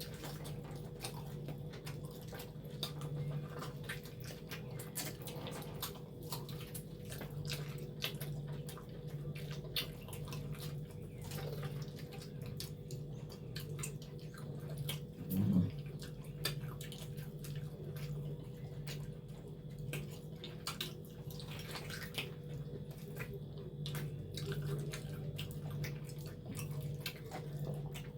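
Two people chewing and biting into spicy cow leg, with many wet smacking and clicking mouth sounds over a steady low hum. A short low sound about halfway through is the loudest moment.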